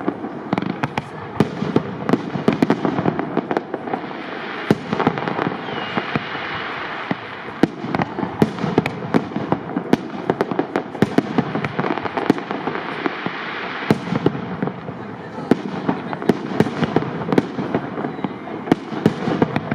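Aerial fireworks display with shells up to 75 mm calibre: rapid, irregular sharp bangs, several a second, over a dense unbroken wash of smaller bursts.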